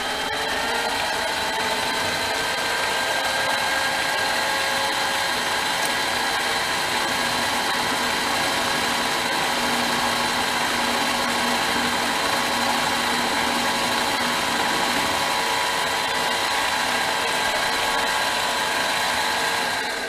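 Power machinery running steadily, a grinder and lathe switched on together for the final sharpening of a hole punch's cutting edge. The whine climbs slightly as it spins up at the start, holds steady, and shuts off near the end.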